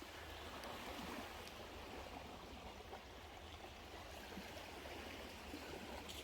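Small waves washing steadily onto a Lake Ontario beach, a faint even rush of water over a low rumble.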